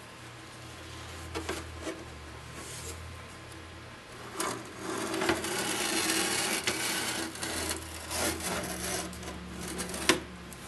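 The back panel of an RCA 9-X-562 radio cabinet being worked loose and pulled off. A few light clicks come first, then a scraping against the cabinet for several seconds from about four seconds in, and a sharp knock near the end.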